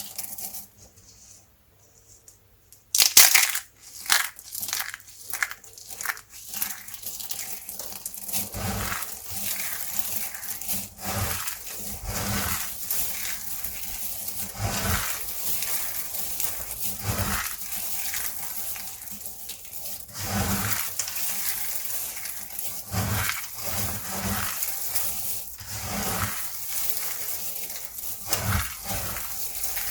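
Soap being broken and crushed by hand. After a quiet start, a loud sharp crack comes about three seconds in, followed by continuous crunching and crackling as the soap crumbles.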